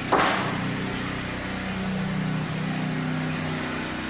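An engine running steadily at a low, even pitch, with one short, sharp noise just after the start.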